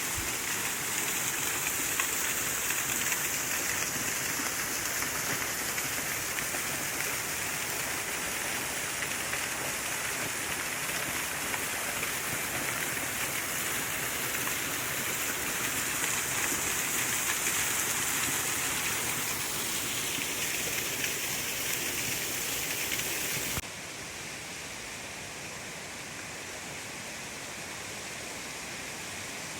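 Waterfall rushing, a steady roar of falling water. A little over twenty seconds in it cuts suddenly to a quieter, duller rush.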